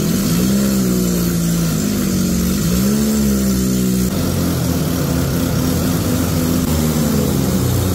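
Diesel tractor engines labouring as they pull a stuck, sand-loaded trolley. In the first half the engine revs up and down. About halfway through it cuts to a steadier, rattling engine note.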